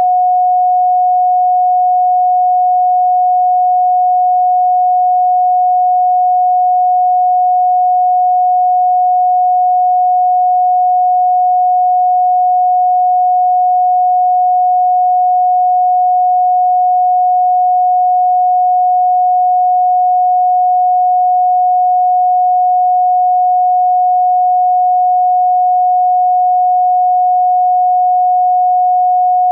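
Pure sine tone at 728.131 Hz, held steady and unbroken at a constant level.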